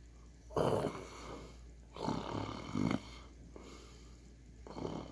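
A man imitating snoring into a close microphone: three snores a second or two apart, with quiet breathing between.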